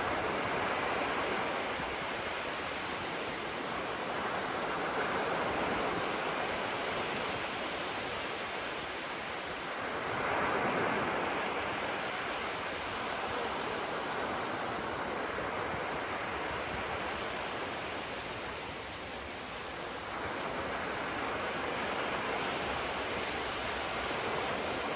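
Small waves breaking gently on the shore: a steady hiss of surf that swells and eases every few seconds, loudest about ten seconds in.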